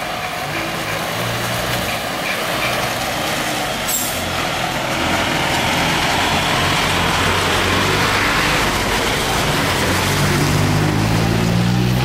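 City bus engine running close by as the bus drives past, over a steady rushing noise; the low engine hum grows louder near the end.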